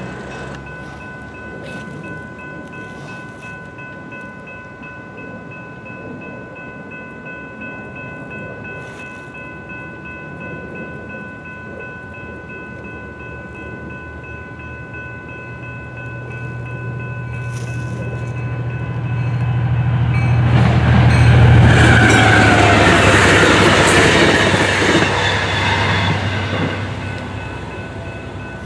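A Trinity Railway Express commuter train approaching and passing. Its low diesel rumble builds from about halfway, peaks with loud wheel and rail noise about three-quarters through, then fades. A steady high ringing tone sounds throughout.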